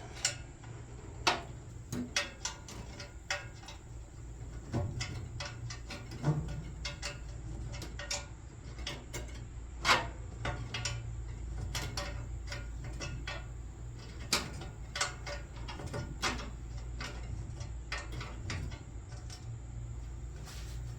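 Hand tools working on exhaust header bolts: scattered metallic clicks and knocks at irregular intervals, one louder knock about ten seconds in, over a steady low hum.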